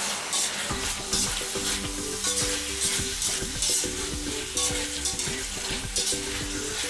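Pork and onions sizzling in a hot wok with a thickened soy-and-sherry sauce while a spatula stirs and scrapes through them in repeated strokes.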